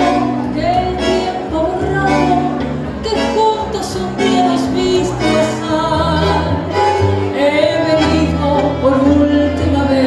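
A woman singing a tango into a microphone, her voice wavering with vibrato, accompanied by a live ensemble of violin, double bass, piano and bandoneón.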